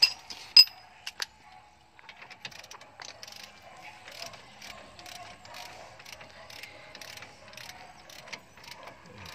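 A ratchet wrench being worked, giving a run of fast metallic clicks at several per second, after a few sharp metal clinks about a second in.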